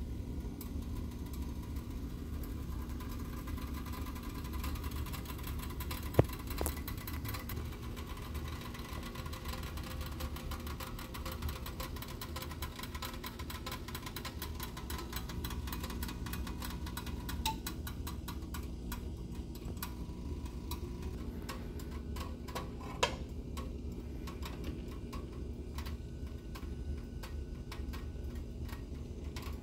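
A steady mechanical hum with a few sharp clicks, the loudest about six seconds in and another past the middle.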